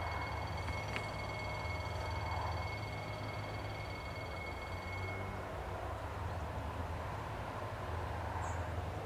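Outdoor background noise beside an empty railway track: a steady low rumble throughout, with a steady high-pitched whine that cuts off about halfway through and a brief high chirp near the end.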